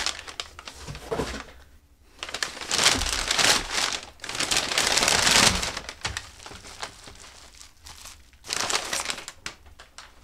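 Plain packing paper crinkling and rustling as it is pulled open and unwrapped by hand, in several bursts, the loudest from about two and a half to five and a half seconds in, with another short burst near the end.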